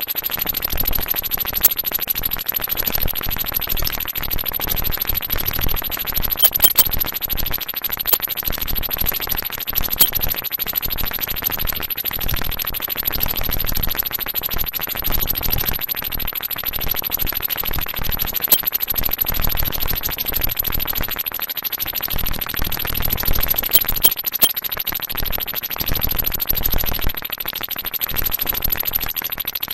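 Synthesized science-fiction sound effect: a fast throbbing electronic texture of glassy, percussive pecking, like an alien creature tapping on glass. A thin steady high whine sits over it, with a few sharper clicks scattered through.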